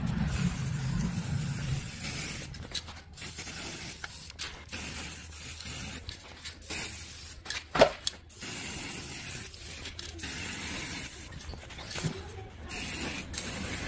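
Aerosol spray can hissing in repeated short bursts, with brief gaps between them as the nozzle is pressed and released. A single sharp knock about eight seconds in is the loudest sound.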